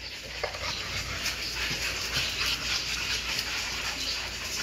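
American bully puppies and an adult American bully play-fighting and scuffling together, with a steady rustle and small scattered clicks.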